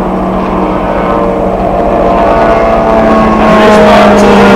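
Water ski race boat's engine running hard at a steady high pitch as the boat speeds past, growing louder about three seconds in.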